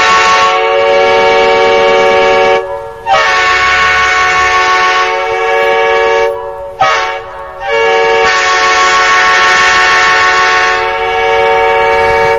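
Multi-tone train air horn sounding in long, steady blasts: a long blast, a short break, a second blast of about three seconds, a brief toot about seven seconds in, then a last long blast of four to five seconds. Several notes sound together as one chord.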